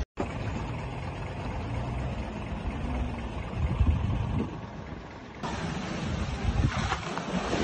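Outdoor wind on a phone microphone with a low rumble, then after a cut about five seconds in, water surging and sloshing along a concrete canal shaken by the earthquake.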